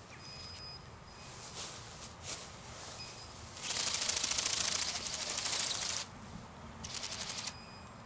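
Bionic Bird robotic bird's wings flapping at full speed: a fast, high-pitched fluttering buzz that starts about three and a half seconds in and lasts a couple of seconds, followed by a shorter burst near the end.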